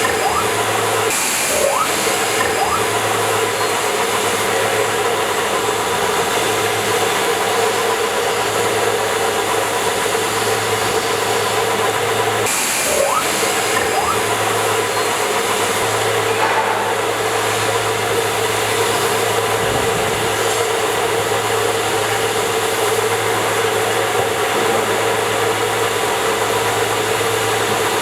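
CNC multi-blade ceramic tile cutting machine running: a steady motor hum with a constant hiss.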